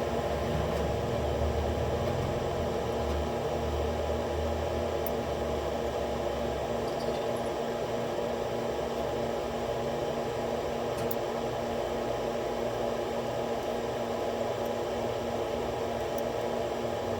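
Steady whirring hum and hiss of a running fan or ventilation unit, with a few faint light clicks.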